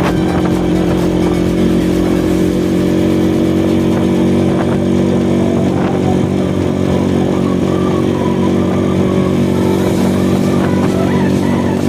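Supermoto motorcycle engine running steadily at road speed, heard from the rider's seat.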